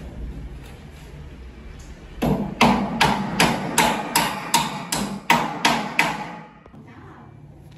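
A hammer striking a long metal channel section repeatedly: about a dozen ringing blows at roughly three a second, starting about two seconds in and stopping about six seconds in.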